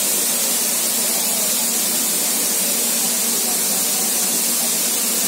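Compressed air hissing steadily from the air brake equipment under a stopped railway coach, with a faint steady hum beneath it.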